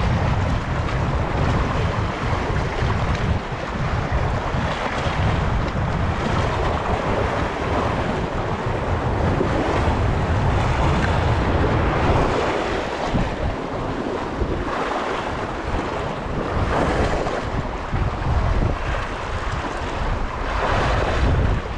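Wind buffeting the microphone over choppy sea waves washing and splashing. The low rumble of the wind is heaviest in the first half, and surges of surf come through more in the second half.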